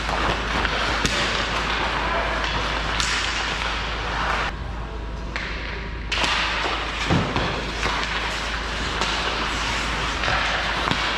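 Hockey game play: a steady wash of rink noise with a few sharp knocks of sticks and puck, about a second in, around three seconds and near seven seconds.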